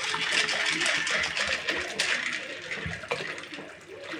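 Water poured from a plastic jug into an aluminium bowl of dried chickpeas, splashing steadily over them. The pour grows softer in the last second or so.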